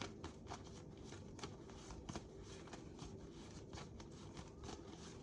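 A deck of reading cards being shuffled by hand: quiet, irregular card flicks and slaps, several a second.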